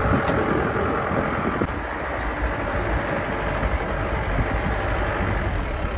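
Road noise inside a car driving over a rough, stony dirt track: steady engine and tyre noise with irregular low knocks from the uneven surface.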